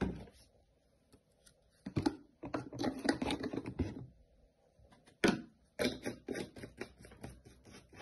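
Irregular clusters of light clicks, knocks and rustling from plastic detergent containers and a measuring cup being handled on a washing machine's top. The sharpest knocks come about two and five seconds in.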